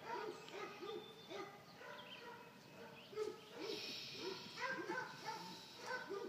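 A run of short, pitched animal yelps, two or three a second, with a brief hiss about four seconds in.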